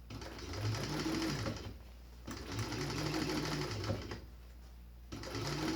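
Sewing machine stitching through nylon webbing in short runs. It runs for about a second and a half, stops briefly, runs again for about two seconds, then starts a third run near the end.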